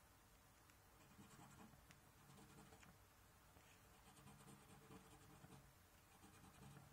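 A coin scratching the coating off a VIP Cashword scratchcard in faint, repeated short strokes, starting about a second in.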